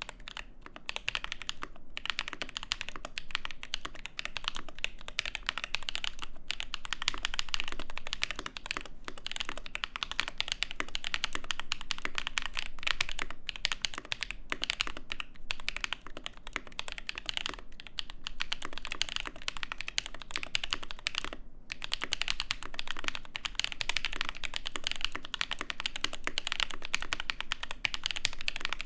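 Typing on a Mode Eighty mechanical keyboard with lubed and filmed Mint Holy Panda tactile switches, an aluminium plate, gasket mounting and GMK keycaps: a fast, steady stream of keystrokes with an extremely muted sound. There are a few brief pauses, the clearest about 21 seconds in.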